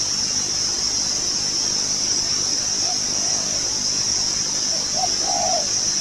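Steady, high-pitched insect drone throughout, with a few faint short low calls in the second half.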